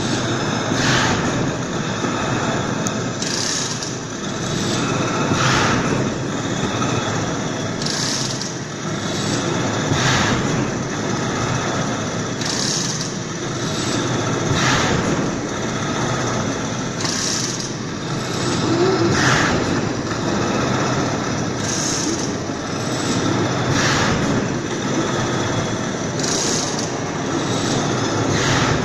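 Horizontal veneer slicing machine running: a steady machine noise with a hissing slice stroke repeating evenly a little over every two seconds.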